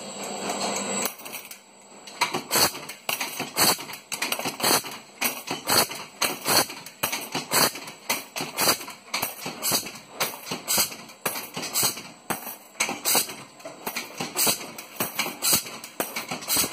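Mechanical punch press stamping small sheet-metal clips, a rapid metallic clatter of about two to three strikes a second that starts about a second in.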